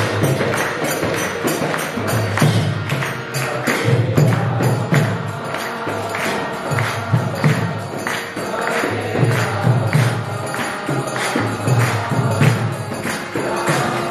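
Devotional kirtan: call-and-response chanting led on a harmonium, with karatal hand cymbals ringing on a steady beat and deep mridanga drum strokes underneath.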